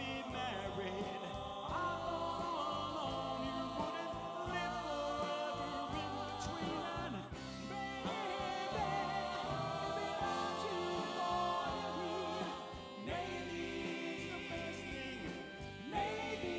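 Live oldies show band performing: group vocal harmony singing over band accompaniment.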